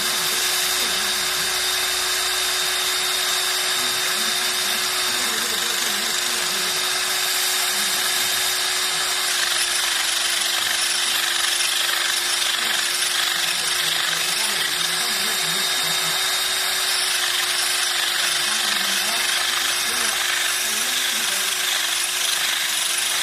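Electric drill bit sharpener running steadily: a small electric motor holding one even hum, with a constant hiss over it.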